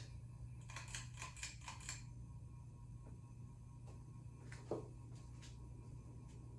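Ceiling fan pull-chain switch clicking several times in quick succession about a second in, as the Hampton Bay Chatham hugger fan is switched to high speed. The fan motor's steady low hum goes on underneath, with one more brief click later.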